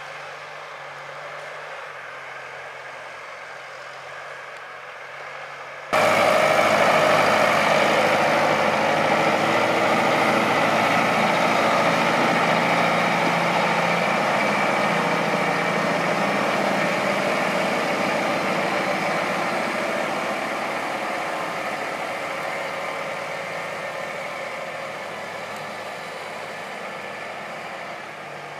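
Valtra A124 forestry tractor's diesel engine running as it hauls a loaded log trailer. It is faint and distant at first, becomes suddenly close and loud about six seconds in, then fades slowly as the rig moves away.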